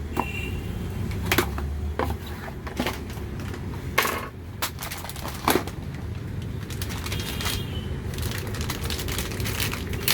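A graphics card's cardboard box and packaging being opened by hand: a scattering of sharp clicks and knocks, then a busy run of small crackles and rustles.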